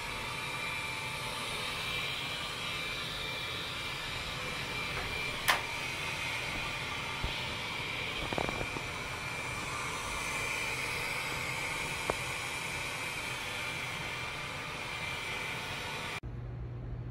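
Robot vacuum cleaner running with a steady whir, with one sharp click about five seconds in.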